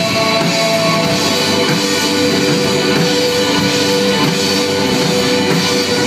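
A rock band playing live and loud: electric guitars, bass guitar and drum kit in a sustained instrumental passage.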